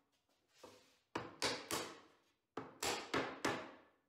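Mallet blows on a block of wood held over glued walnut dovetail joints, driving the joints down to seat them. There is a faint tap, then two quick runs of blows, three and then four.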